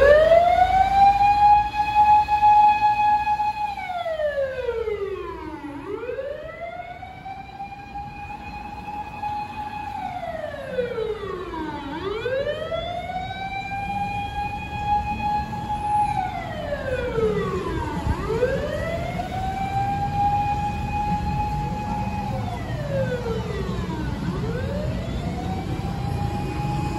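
Fire engine siren wailing: each cycle rises to a held high note for about two seconds, then slides down, repeating about every six seconds. It is loudest in the first few seconds, fades, then grows louder again, over a low rumble of street traffic.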